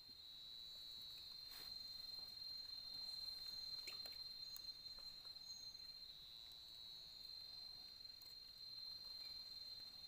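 Faint, steady high-pitched drone of insects holding one pitch, with a couple of light clicks about one and a half and four seconds in.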